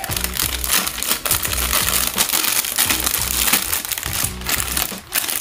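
Clear plastic packaging bag crinkling and rustling as it is handled, over background music with a steady beat.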